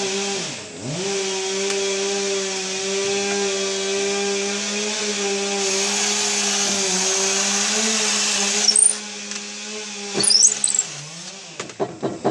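Electric drill running steadily as it bores a hole, its motor whine dipping briefly in pitch about half a second in. Near the end it gives two short high squeals, then the motor stops shortly before the end.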